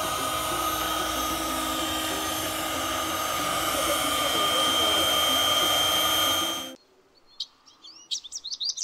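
Electric air blower running steadily with a hum to keep an inflatable water-slide pool blown up. It cuts off abruptly about seven seconds in, and a few bird chirps follow near the end.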